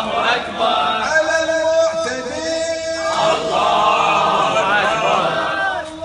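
A group of men chanting in unison, a sung protest chant with long held notes.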